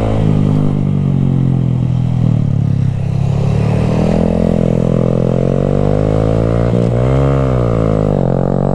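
Honda Grom's single-cylinder motorcycle engine running while riding, its pitch climbing through the middle, then dropping and briefly rising and falling again near the end.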